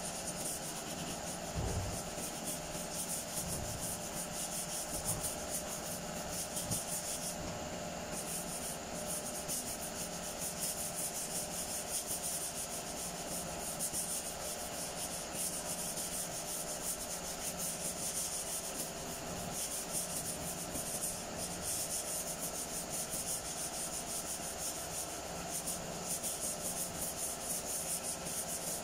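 Body filler on a car's fender and door being wet-sanded by hand: sandpaper rubbing back and forth over the panel in quick strokes, with a short pause about seven seconds in.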